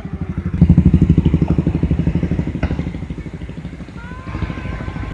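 A vehicle engine running with a fast, even throb, loudest about half a second in and then fading away over the next few seconds.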